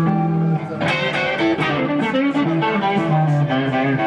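Electric guitar with TV Jones Classic pickups played through a Soldano amp. A held note rings, then just under a second in a sharp pick attack starts a busy run of single notes.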